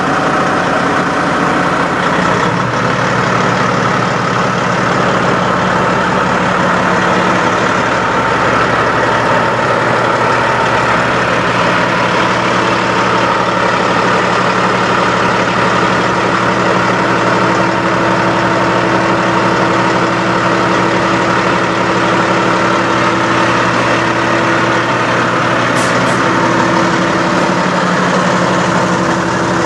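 Western Star semi truck's diesel engine idling steadily.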